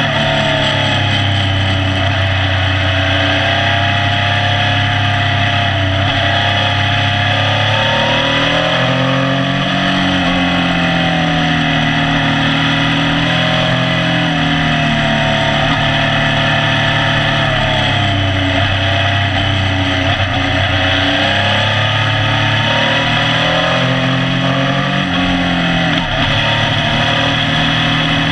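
Motorcycle engine running under way, its pitch rising and falling with throttle and stepping with gear changes, over constant wind and road noise.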